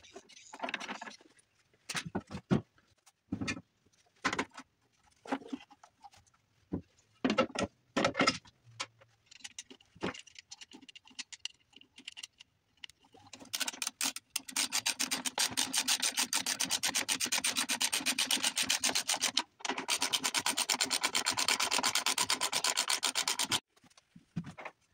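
Hand-tool work on a snowmobile's chaincase: scattered metal clicks and knocks, then, about halfway through, a fast, even rasping rattle that runs about ten seconds with a brief break in the middle.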